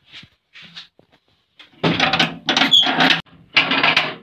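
Blue-painted steel door with rusty bars being handled: a few light knocks, then two loud stretches of metal scraping and rattling as it is moved, with a brief squeal in the first stretch.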